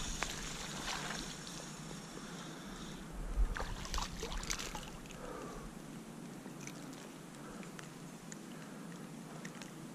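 Hooked smallmouth bass splashing at the river's surface as it is reeled in, a few splashes about three to four and a half seconds in, over a low steady rush of flowing water.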